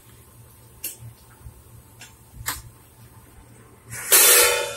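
Two light clinks of a steel spoon against a plate, about a second and two and a half seconds in, then a loud burst of noise for under a second near the end.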